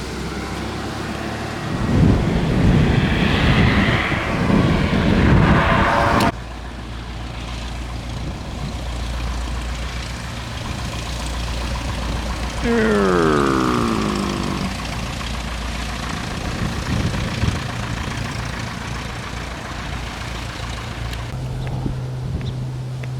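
Small propeller airplanes on a gusty day: wind buffets the microphone in loud gusts for the first few seconds, then there is a steady low engine hum, and about 13 s in an engine note falls in pitch as a plane goes past.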